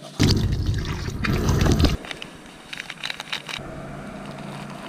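A loud rush of water noise lasting about two seconds that starts and cuts off abruptly, followed by fainter background noise.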